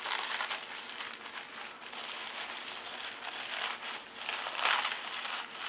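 Packing wrap crinkling in irregular bursts as it is unwrapped by hand from shipped hatching eggs.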